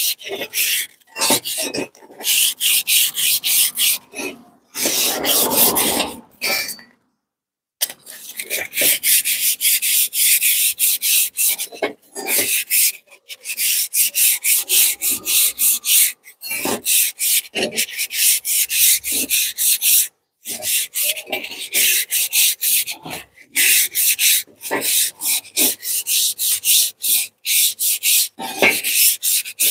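Sandpaper rubbed by hand back and forth along a steel suspension coil spring, a quick rasping scrub of about four strokes a second with short pauses, one brief silence about seven seconds in. The old paint and rust are being stripped from the Nissan strut spring so that it can be repainted.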